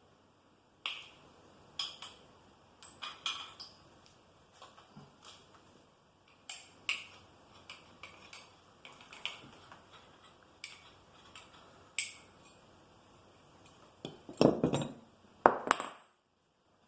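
Metal tools and bicycle crank parts clinking and clanking as they are worked and handled, one sharp clink about every second, with a louder clatter of several clanks near the end.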